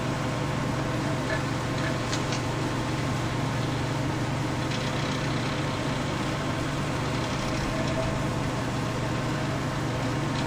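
Comfort Zone CZ121KM 12-inch oscillating table fan running while it oscillates: a steady, quiet motor hum under an even rush of air from the blades.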